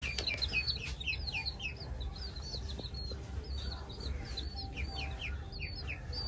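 Baby chicks peeping: repeated short, high cheeps that fall in pitch, several a second, thinning out briefly about two seconds in. A steady low rumble runs underneath.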